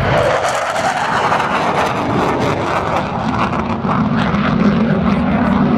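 Panavia Tornado GR4 jet's twin turbofan engines: a loud, continuous jet roar as it flies a display pass, the high hiss dropping away about halfway through as a deeper rumble builds.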